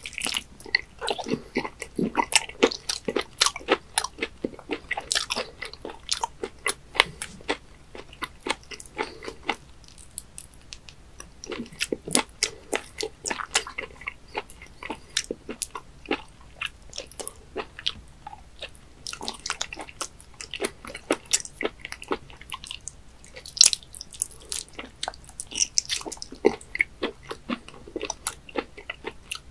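Close-miked chewing and sucking of raw webfoot octopus tentacles: dense, irregular sharp clicks and smacks from the mouth, with a couple of short lulls.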